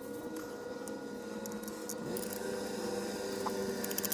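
Steady background hum, with a few faint clicks of metal horn parts being handled near the end.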